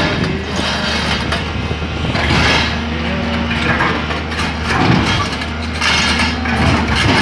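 Excavator diesel engine running steadily under load, with repeated surges of noise as the hydraulics work the boom and bucket.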